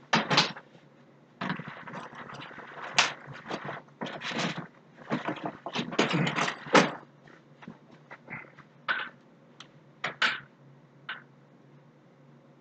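Luggage being handled: a bag dropped to the floor and a suitcase lifted and moved, giving a dense run of rustles, scrapes and thumps that thins out after about seven seconds, with a couple of separate knocks later.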